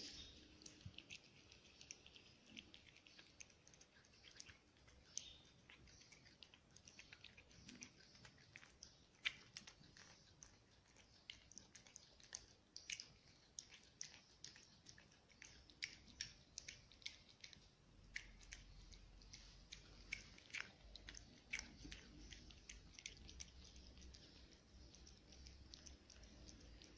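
A cat chewing small pieces of soft food from a plate: a faint, irregular run of quick clicks from its mouth, several a second.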